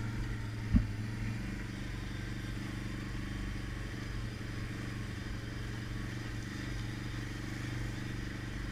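ATV engine running at a steady pace while the quad rolls over a rocky dirt trail. There is one sharp knock less than a second in.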